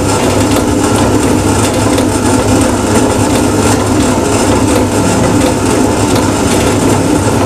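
Long cotton wick making machine running steadily, a constant motor hum with a rough mechanical noise over it as it rolls cotton into wicks.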